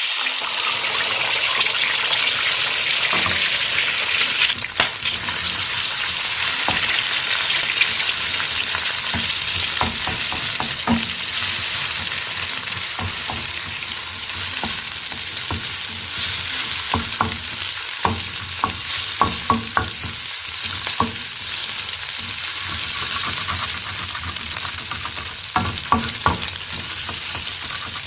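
Food frying in hot vegetable oil in a pan, a loud steady sizzle that starts suddenly and is strongest in the first few seconds. From about ten seconds in, frequent short clicks and taps of a utensil against the pan as the food is stirred.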